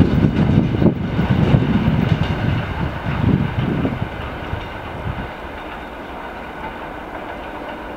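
Freight train cars rolling away, their wheels clattering over the rail joints, loud for the first four seconds or so and then fading to a low rumble.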